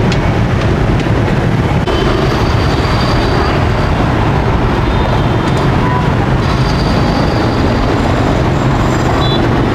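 Busy street traffic, mostly motorbikes, making a steady loud rumble of engines passing.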